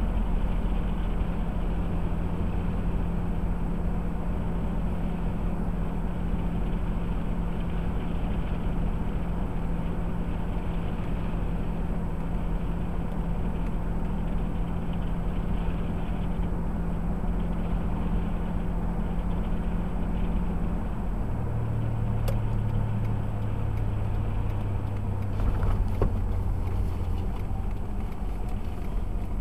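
Car driving along a highway, heard from inside the cabin: a steady drone of tyre and engine noise. About two-thirds of the way through, the engine hum drops to a lower pitch as the car slows toward a turn.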